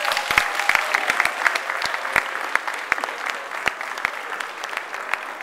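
Audience applauding: many hands clapping together, loudest at first and easing off slightly.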